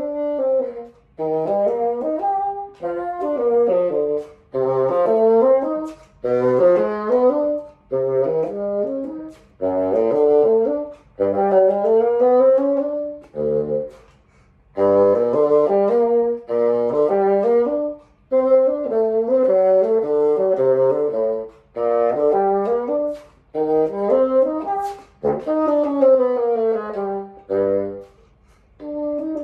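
A solo bassoon playing quick passages in short phrases, with brief pauses for breath between them and occasional dips to low notes.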